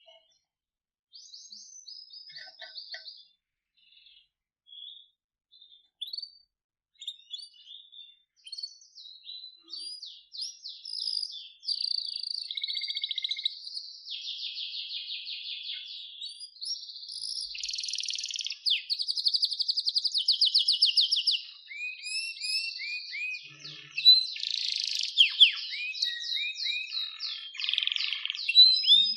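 Domestic canary singing: scattered short chirps and phrases at first, then, from about twelve seconds in, a continuous run of fast trills and rolls, with quick falling notes near the end.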